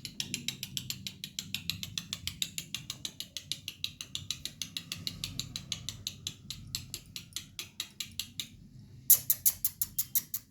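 A rapid, even train of sharp ratchet-like clicks, about six a second. They break off about eight and a half seconds in and come back louder for a short run near the end.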